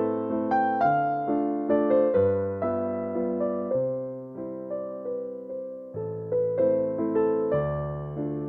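Background piano music: a slow, gentle melody of struck notes over low bass notes, each note fading after it is played.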